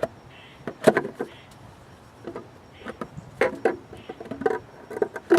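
Irregular metal clanks and knocks, several with a short ringing tone, as an exhaust manifold is fitted onto the engine of a 1963 Studebaker Lark.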